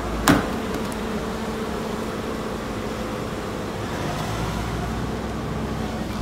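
A car door handle is pulled and the door latch clicks open once, about a third of a second in. A steady hum follows.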